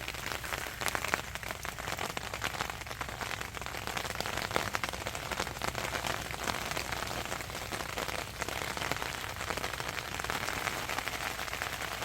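Rain falling on the roof of an SUV, heard from inside the car: a steady, dense patter of many small drops.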